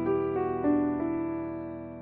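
Gentle background piano music: sustained chords, one changing about half a second in, fading away near the end.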